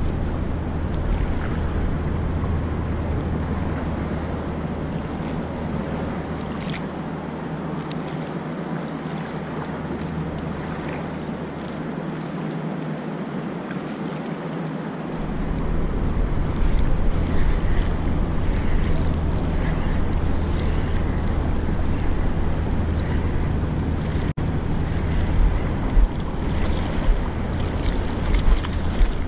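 Wind buffeting the camera microphone with a steady low rumble that eases off for a few seconds midway and then returns, over water lapping at the shore, with a few short knocks near the end.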